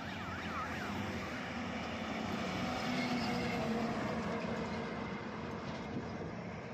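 Multi-axle Tata Signa heavy truck passing close, its tyre and engine noise swelling to a peak about three seconds in and then easing off. A warbling high tone rises and falls several times right at the start.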